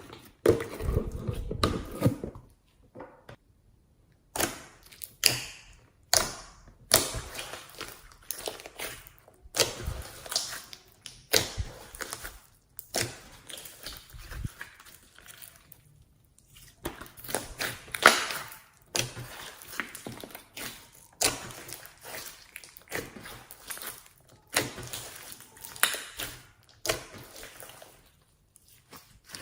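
Slime being kneaded, squeezed and stretched by hand: irregular sticky squishes and clicking pops, each one starting sharply and dying away, with brief pauses between them.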